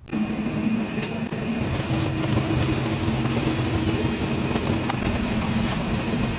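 High-powered duct-cleaning vacuum running at full suction on a dryer vent: a loud, steady noise with a constant low hum that starts abruptly.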